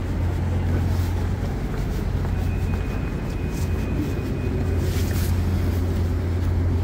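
Railway station ambience dominated by a steady low engine-like hum. A thin high tone sounds for a few seconds in the middle, and a few sharp knocks come near the end.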